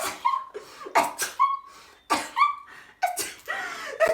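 A woman sneezing over and over in a rapid series, about five sneezes with some coming in quick pairs: a sharp intake-and-burst each time, ending in a short vowel sound.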